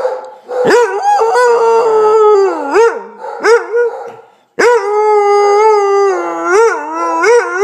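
Basset hound howling in two long, wavering howls. The first starts about half a second in and breaks off a little after four seconds with quick dips and rises in pitch. The second follows at once and ends in short up-and-down yowls.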